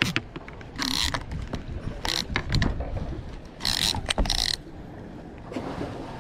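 Conventional saltwater reel being cranked in short bursts while a hooked fish is reeled in: about half a dozen brief runs of gear noise, irregularly spaced.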